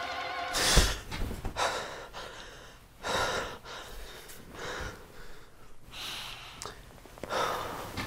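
Music cuts off and a man gasps sharply, then breathes heavily in and out in long breaths, as if just startled awake.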